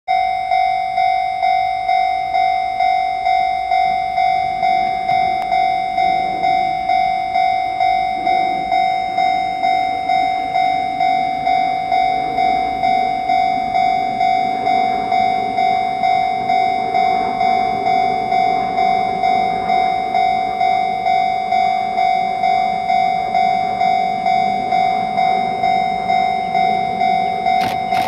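Japanese railway level-crossing alarm ringing its repeated electronic bell tone, about three strikes every two seconds, at a steady beat. From about halfway the rumble of an approaching freight train rises underneath.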